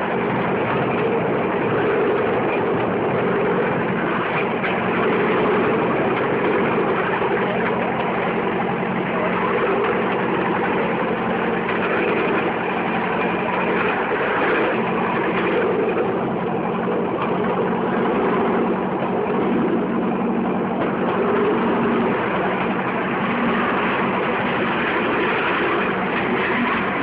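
Small engine of a bamboo train (norry) running steadily as the bamboo platform rolls along the rails, its low hum under a constant rushing, rattling noise of travel.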